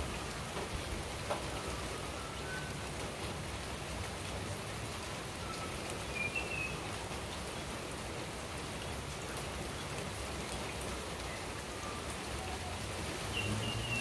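Steady rain falling, an even hiss of drops, with a few faint short high chirps now and then.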